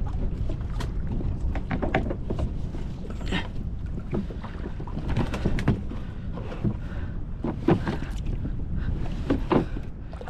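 Wind rumbling on the microphone, with water splashing and lapping against a kayak in short irregular bursts every second or two.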